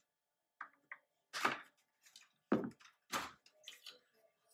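Plastic clicks and knocks as the snapped-on plastic back cover is worked loose and pulled off a 2018 Ford F-150 grille: a handful of sharp knocks, the three loudest about a second apart.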